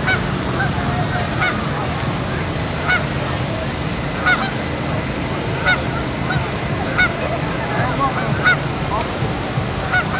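Canada geese honking on the water, one sharp honk standing out about every second and a half, over a steady background of softer calls and noise.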